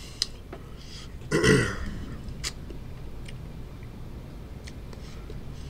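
A man burps once, briefly, about a second and a half in; a few faint clicks follow.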